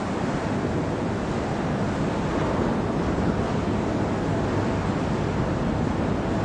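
Steady wash of waves and sea water inside a sea cave, heard from aboard a small boat moving through it.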